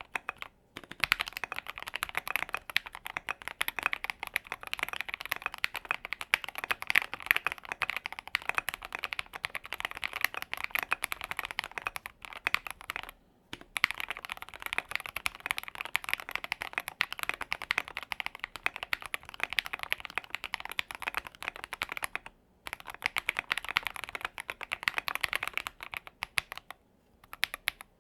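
Continuous fast typing on a mechanical keyboard with tall MG profile ABS double-shot keycaps: a dense run of keystroke clacks. It pauses briefly twice and stops shortly before the end.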